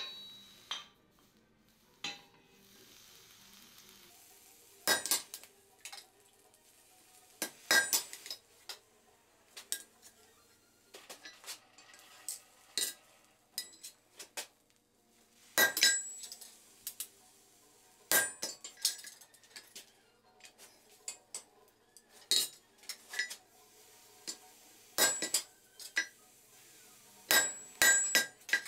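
Hammer blows on a handled hot chisel driven through red-hot iron on the anvil, splitting an eye open rather than punching it: sharp ringing metallic strikes, singly or in twos and threes every few seconds, with lighter clinks between.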